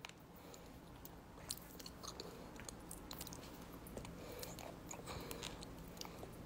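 Faint chewing close to a phone's microphone: scattered soft clicks and small crunches.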